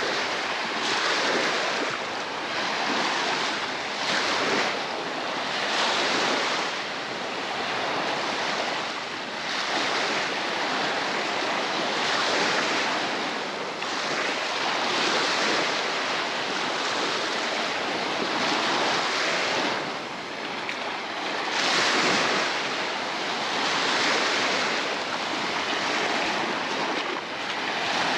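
Baltic Sea surf breaking on a beach: a steady wash of waves that swells and falls back every couple of seconds.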